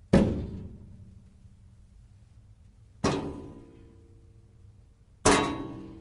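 Metal file drawers banging three times, about a second in... about three seconds in and near the end, each bang sharp and then ringing briefly as it fades.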